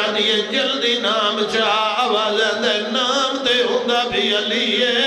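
A man's voice chanting a mournful recitation in a melodic, drawn-out sung style: a zakir's masaib, the lament for the sufferings of Karbala.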